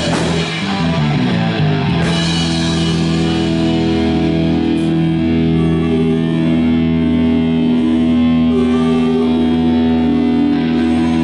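Live rock band with electric guitar and drums playing a quick descending run with drum hits. About two seconds in, this gives way to a long chord held and ringing out, like the closing chord of a song.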